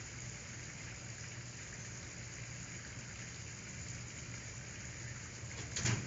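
Steady hiss of background noise with a low hum underneath, and one short knock near the end.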